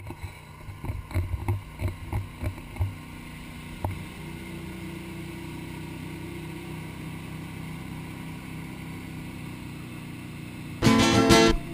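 Ski boat's engine running steadily at towing speed, with low irregular thumps over the first few seconds. Loud strummed guitar music starts near the end.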